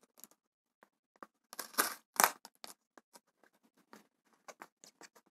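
Paper masking tape being pressed and smoothed by fingertips onto a plastic yogurt lid: scattered soft taps and rustles, with a louder cluster of brief crinkly sounds about two seconds in.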